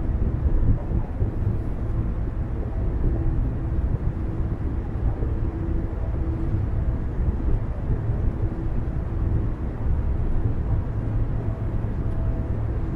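Car driving steadily along a road: a continuous low rumble of tyres and engine, with a faint hum that comes and goes.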